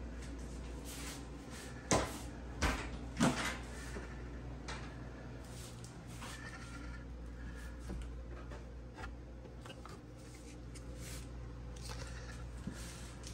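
Pantry cupboard being opened and searched: three sharp knocks close together a couple of seconds in, then scattered light clicks and rustles from items on the shelves, over a low steady hum.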